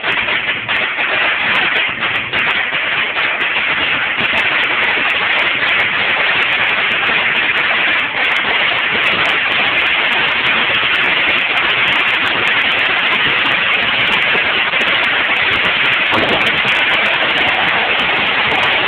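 A long string of firecrackers going off on the road in a continuous rapid crackle of pops that merge into one steady racket.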